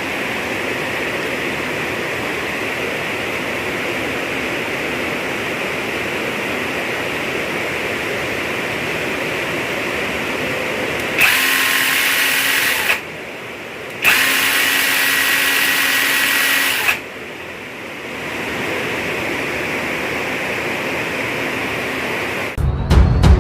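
Masaki electric chainsaw run briefly twice, a motor whine with steady tones lasting about two and then three seconds and stopping sharply each time, over a constant background hiss.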